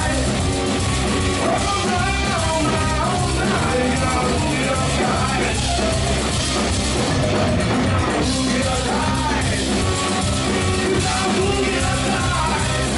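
Live blues-rock band playing a boogie, with electric guitar, electric bass and drum kit.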